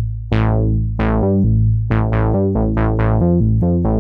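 Cherry Audio LowDown, a software emulation of the Moog Taurus bass pedals, playing a line of about ten deep bass notes on its 'Bright Attack' preset. Each note starts bright and quickly mellows. The notes come slowly at first and faster in the second half.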